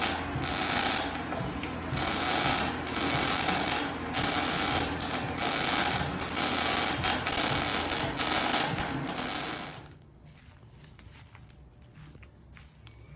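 Wire-feed (MIG) welding arc crackling and sputtering steadily as a bead is laid, cutting off suddenly about ten seconds in when the trigger is released.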